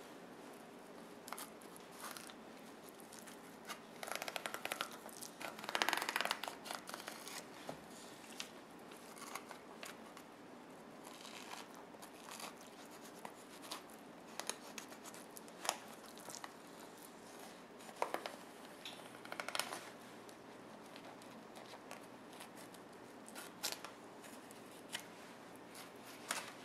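Knife slicing along a Chinook salmon's backbone and rib bones as the fillet is cut free: faint scraping strokes and small ticks, with a couple of louder rasps about four and six seconds in.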